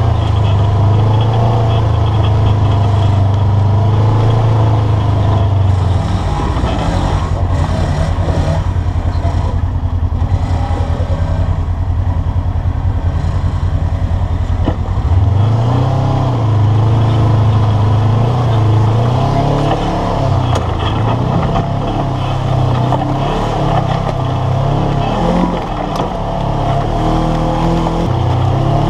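Side-by-side UTV engine running as the vehicle crawls over a rocky trail, a steady hum at first. From about halfway on the engine speed rises and falls as the throttle is worked.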